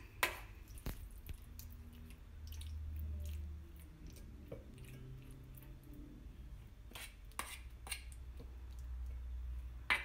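Metal spoon clinking and scraping on a steel bowl as a thick vegetable masala is spooned onto rice, with soft squishing of the mixture. Scattered sharp taps, a few close together just after seven seconds in, over a low hum that swells twice.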